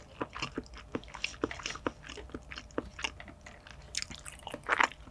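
A person chewing caviar with food, close-miked: irregular small wet clicks from the mouth, with a louder burst of mouth sounds near the end.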